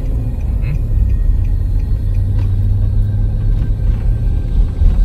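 Steady low rumble of a Nissan Patrol Y62 driving on a sealed road, heard from inside the cabin: engine and tyre noise.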